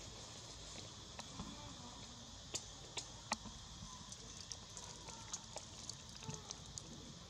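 Faint outdoor background hiss with a scattering of short sharp clicks and ticks, the loudest three between about two and a half and three and a half seconds in.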